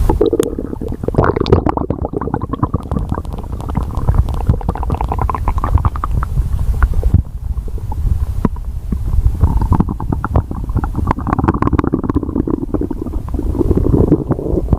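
A stomach growling: continuous gurgling and rumbling that swells and eases in waves, studded with many small crackling pops, easing briefly about halfway through.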